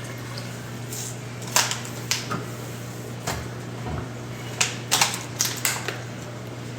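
Light clicks and knocks at irregular intervals, a dozen or so, over a steady low hum.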